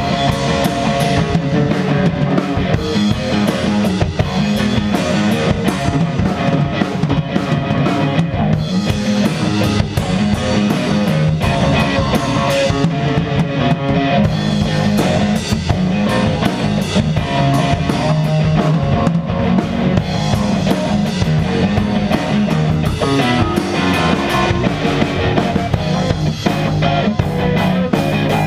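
A rock band jamming live: a DW drum kit keeping a steady beat under an electric bass and an electric guitar playing together.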